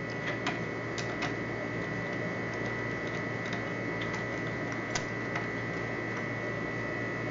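A few scattered light clicks and taps of knob-lockset parts being fitted by hand, over a steady background hum with a faint constant high whine.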